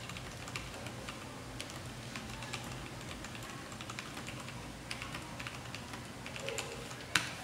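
Typing on an IKBC Table E401 mechanical keyboard with tactile Brown switches: a steady, uneven run of key clicks as keys bottom out, with one louder click near the end.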